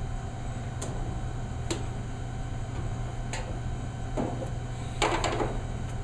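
A few light sharp clicks, then a short scraping rustle near the end, from hands handling parts of the washing machine during repair, over a steady low hum.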